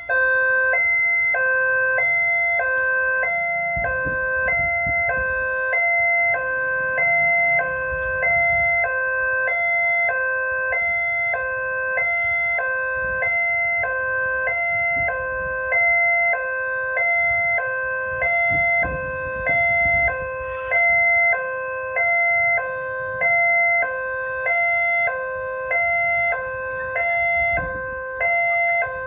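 Railway level-crossing warning alarm: an electronic two-tone signal alternating evenly between a higher and a lower note, warning that a train is approaching. A low rumble rises underneath at times.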